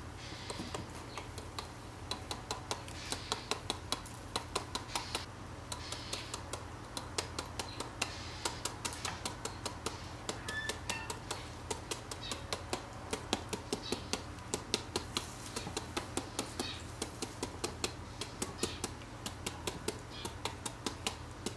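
A hand-held metal shredder blade scraping down a peeled green papaya in quick repeated strokes, each stroke a short sharp crunching click, about two to three a second, over a steady low hum.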